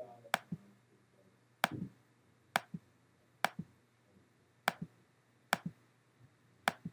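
Computer mouse button clicking, eight sharp clicks at roughly one a second, each a quick press-and-release pair.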